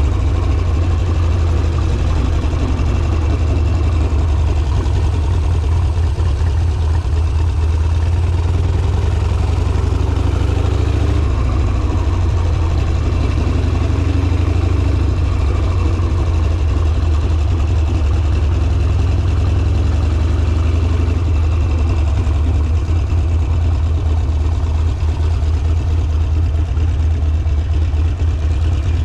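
Harley-Davidson Sportster's air-cooled V-twin engine running steadily, with a deep, even engine note and no sharp revving.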